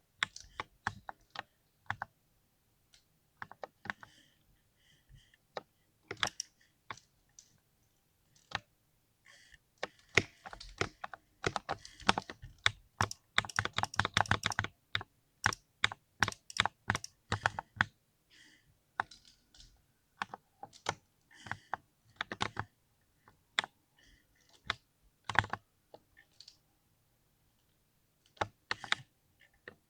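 Typing on a small mechanical keyboard: irregular runs of key clicks, fastest and densest about halfway through, with short pauses between bursts.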